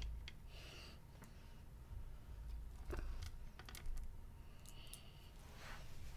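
Faint clicks of small hard-shelled candy pebbles being picked up and knocking together in a hand, with a few soft rustles between them.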